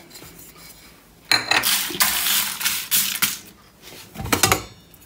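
Dry roasted whole spices, mostly coriander seeds with bay leaves and star anise, rattling and sliding across a wide bowl as it is tipped toward a grinder. The seeds make an even rattle for about two seconds from a second in, then a few light knocks follow near the end.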